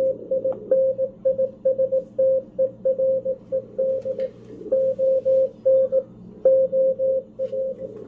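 Machine-sent Morse code (CW) from W1AW's code practice transmission on 160 meters, heard through a shortwave SDR receiver: a single steady beep keyed on and off in dots and dashes at about 18 to 19 words per minute, over faint band hiss.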